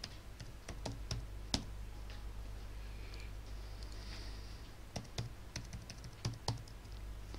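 Keystrokes on a computer keyboard, irregular clicks in small clusters as a password is typed in, over a low steady hum.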